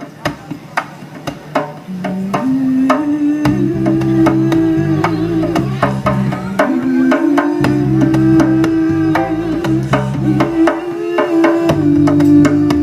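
Live band music: a drum taps out a beat alone, then a bass line and a held melody come in about two to three seconds in and carry on as a steady groove.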